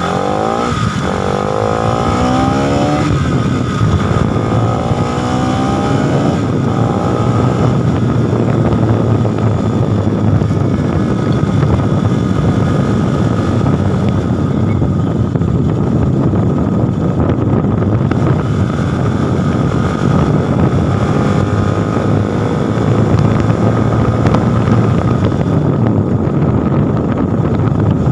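Bajaj Pulsar NS200's single-cylinder engine and exhaust accelerating through the gears, its pitch rising three times over the first six seconds or so. It then runs steadily at speed under a constant rush of noise.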